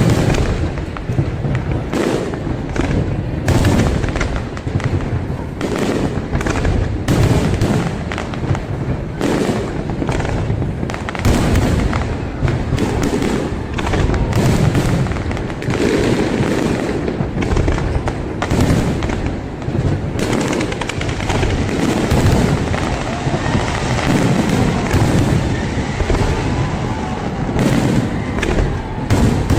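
Fireworks display: a dense, continuous run of bangs, several a second, over a low rumble.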